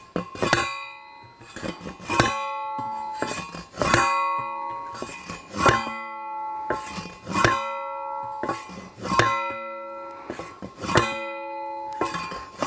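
Hand-held steel post driver slamming down on a wooden fence post, about eight blows at an even pace of one every second and a half or so. Each blow rings on like a church bell, with fainter knocks between the blows.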